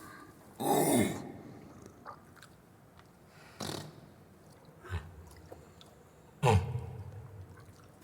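Orangutan giving short separate calls: a loud one about half a second in that falls in pitch, two fainter sounds in the middle, and another loud call a little over six seconds in.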